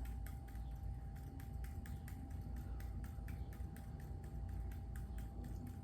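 Fingertips tapping lightly and rapidly on the body, about five or six taps a second, in EFT tapping on an acupressure point. A faint steady tone sounds behind it.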